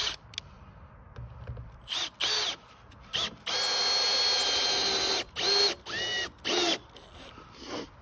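Electric drill-driver run in a series of short bursts and one steady run of nearly two seconds, its whine rising in pitch as it spins up each time: backing old screws out of a fence board.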